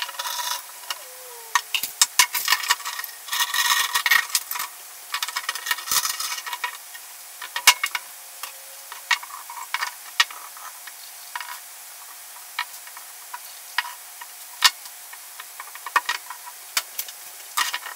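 Pallet-timber pieces being knocked and slid together on a wooden workbench during a glue-up, with a steel bar clamp clattering as it is handled. Clusters of scraping and rattling come in the first several seconds, then scattered single knocks and clicks.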